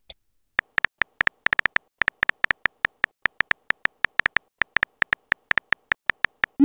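Phone keyboard typing clicks: a quick, uneven run of short taps, about seven a second, as a text message is typed. It ends on a short rising swoosh as the message is sent.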